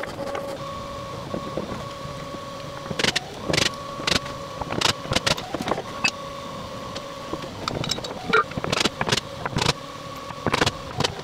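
Ryobi One+ cordless drill/driver running in several stretches of steady whine that stop and start, with loud knocks and clicks in between.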